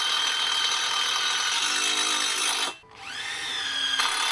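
Electric drill running under load, driving a screwdriver power bit into a 4.65 mm steel plate. The drill stops abruptly a little under three seconds in, then starts again with a rising whine as the motor spins back up.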